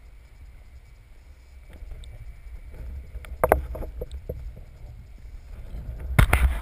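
Low, steady underwater rumble heard through a camera mounted on a speargun, with a few sharp knocks and clicks from handling of the gun about halfway through and a louder cluster of knocks near the end.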